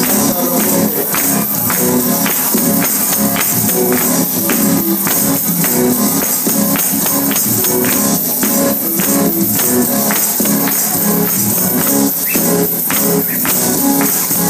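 Loud gospel music with a tambourine jingling on a steady beat over sustained pitched instruments.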